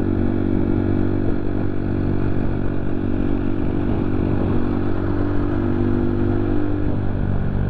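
Yamaha MT-15's 155 cc single-cylinder engine running at a steady cruising speed, its pitch held nearly constant, with a slight shift near the end.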